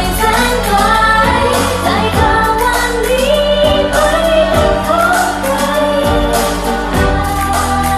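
Thai pop song: a voice sings a melody over a full backing track with a steady drum beat.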